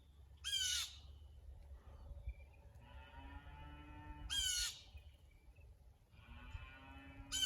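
Blue jays scolding with three loud, harsh calls about half a second each, spaced about three and a half seconds apart. This is the mobbing alarm call of jays driving at a hawk on its kill.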